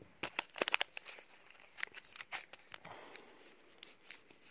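Foil wrapper of a Pokémon TCG booster pack crinkling in the hands, with scattered small crackles and clicks as the pack and its cut-off top strip are handled.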